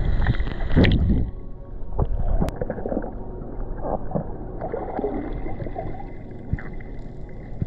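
Underwater sound through an action camera's housing: a muffled low rush of moving water with scattered clicks and bubbly gurgles, louder and brighter for about the first second.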